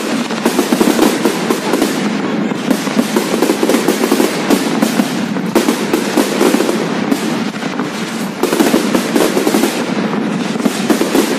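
Fireworks display in a dense barrage: many rapid bangs and crackles running together without a break, easing slightly for a moment about eight seconds in.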